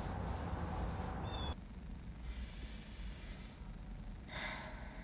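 A person breathing: two audible breaths, the second about two seconds after the first, over a low steady background noise that drops about a second and a half in.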